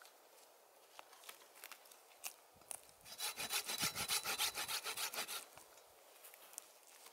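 A small camping hand saw cutting through a small log, with fast back-and-forth strokes, about five a second, for about two and a half seconds starting about three seconds in. A few faint knocks come before the sawing starts.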